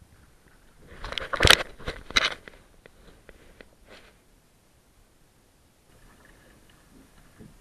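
Camera handling noise as the camera is turned on its mount: a cluster of loud scrapes, rubs and clicks about a second in, then a few lighter clicks, then faint background.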